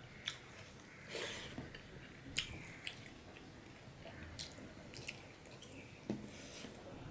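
Fingers mixing rice and curry on a steel plate: soft wet squishing and scattered small clicks against the metal, with close chewing sounds.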